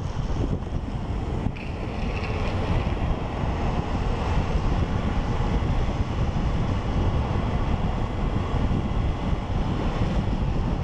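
Steady wind noise buffeting the microphone at downhill longboarding speed, a low rushing roar.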